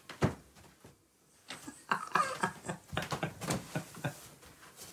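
People laughing in short, irregular bursts, starting about a second and a half in after a brief hush.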